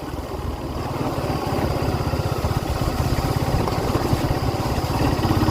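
Suzuki GSX-R150's single-cylinder engine running at low speed, its pulsing exhaust note gradually getting louder.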